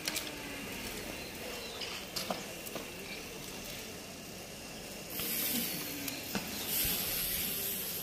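Steady hiss of outdoor background noise with a few light clicks and taps. About five seconds in, the hiss grows louder and brighter.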